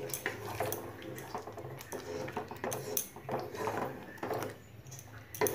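Wooden spatula stirring thick spinach gravy with paneer in a nonstick pan: irregular wet squelches and scrapes against the pan, over a low steady hum.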